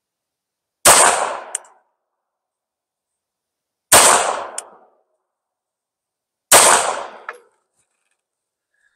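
Three single pistol shots from a Girsan MC14T .380 ACP handgun fired slowly in single action, about three seconds apart. Each shot rings out for most of a second, with a short sharp tick under a second after it.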